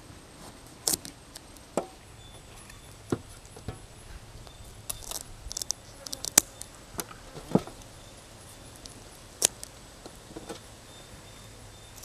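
Kitchen shears snipping the fins off a whole raw mullet: about a dozen sharp snips and clicks at irregular gaps.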